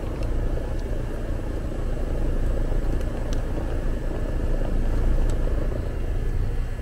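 Rheem split-system outdoor condensing unit running, its fan and compressor giving a steady low hum with a couple of faint steady tones. Now and then the light click of tools being handled.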